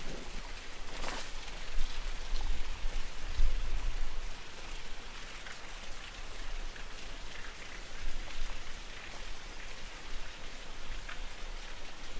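Steady rain falling, an even hiss dotted with small sharp drop ticks, with some low rumbling now and then.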